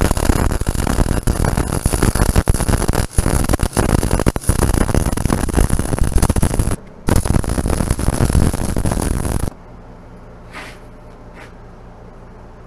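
MIG welding arc crackling and sputtering as a bead is laid along a thick steel joint, with a brief break about seven seconds in. The arc stops about three seconds before the end, leaving a steady low hum.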